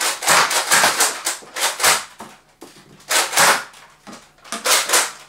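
Nerf Modulus Tri-Strike dart blaster slam-firing: the priming slide is racked again and again with the trigger held, so it fires a dart on each stroke. Several sharp clacking shots come in quick groups with short pauses between them.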